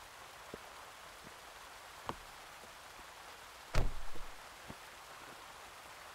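Someone getting into a car: a few light taps over a steady faint hiss, then a short cluster of thuds about four seconds in as a shopping bag is set inside and a man settles into the passenger seat.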